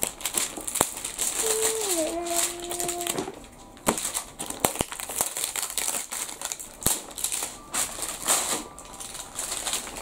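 Clear plastic shrink-wrap on a box of surprise eggs being torn and pulled off by hand, crinkling with many sharp crackles and clicks.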